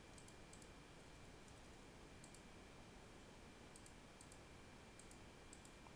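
Faint clicks of a computer mouse, in small clusters of one to three, selecting lines while drawing in CAD software. Otherwise near silence with a low steady hiss.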